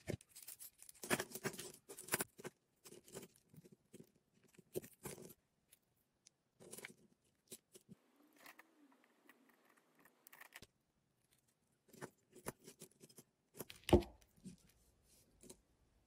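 Small irregular clicks, taps and light rattles of hands handling keychain hardware: metal jump rings, a ball chain and plastic chain links against a hard resin charm and the tabletop, busiest at the start, with one louder knock near the end.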